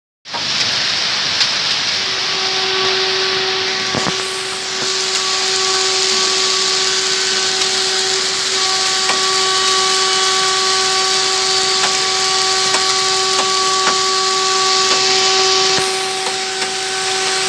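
Hail mixed with heavy rain falling on the road and vehicles: a loud, dense crackling hiss with scattered sharper knocks. A steady pitched hum joins it about two seconds in.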